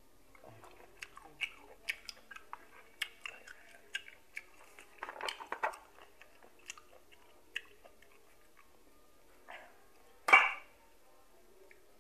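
Close-up mouth sounds of chewing boiled apple snail meat: a quick run of wet clicks and smacks for the first several seconds, then a few scattered ones, and one short, louder noisy sound about ten seconds in.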